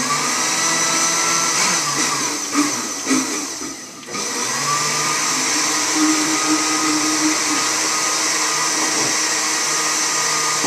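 Countertop blender running on a thin egg-and-oil mayonnaise mixture, which has not yet thickened. The motor note dips briefly about four seconds in, then runs on steadily.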